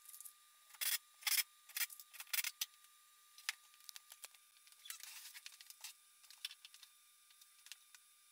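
Faint, scattered clicks and knocks of hand work at a workbench, a few louder knocks in the first two and a half seconds, over a thin steady high tone.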